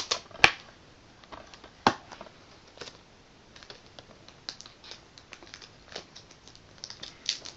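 Plastic DVD case being handled and opened: a sharp snap about half a second in, another about two seconds in, then scattered light clicks and crinkles of plastic.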